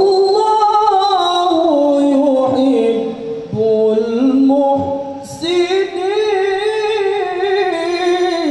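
A man reciting the Quran in melodic tilawah style, holding long ornamented notes that waver up and down in pitch. There is a short breath break about five seconds in before the next phrase.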